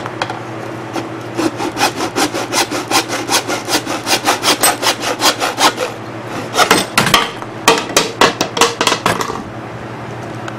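Hand hacksaw cutting through 4-inch schedule 40 cellular-core PVC pipe: quick, even back-and-forth rasping strokes, a short break about six seconds in, then a last run of strokes that finishes the cut about a second before the end.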